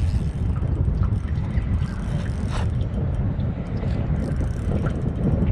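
Wind rumbling on the microphone, a steady low buffeting, with a few faint clicks above it.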